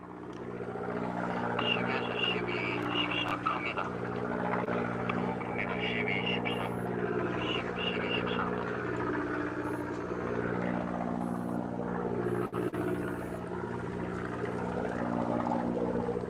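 Fishing reel being cranked to bring up a hooked squid. Under it runs the boat engine's steady hum.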